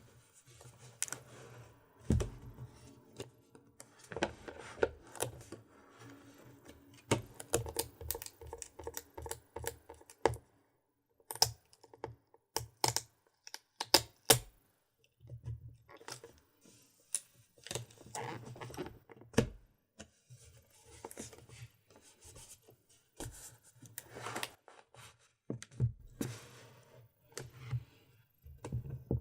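Close-miked tapping, clicking and light rustling as a GoPro Hero 4 Silver's packaging and parts are handled, with irregular sharp clicks that come in clusters and pause twice.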